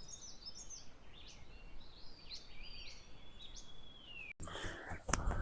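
Small birds singing and calling: a quick run of short chirps and whistled notes, some sliding up or down, and one long level whistle. It breaks off abruptly about four seconds in, followed by rustling and a couple of sharp clicks.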